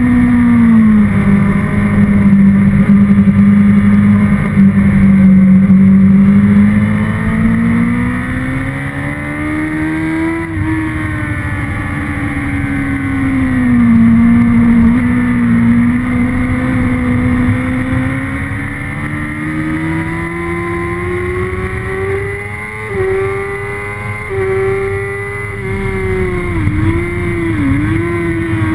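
A motorcycle's engine heard from onboard at track speed, its pitch falling and rising as the rider brakes and accelerates through corners, with wind rush throughout. The note climbs steadily through the second half, then drops briefly twice near the end.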